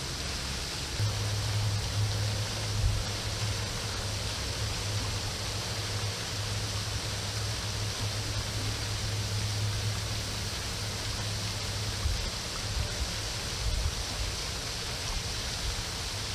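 Pond fountain spraying: a steady, even watery hiss. A low steady hum runs underneath for most of it.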